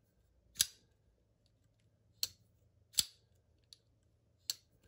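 Shirogorov Quantum titanium flipper knife on its multi-row bearing system being flipped open and shut: four sharp clicks of the blade snapping open and closing.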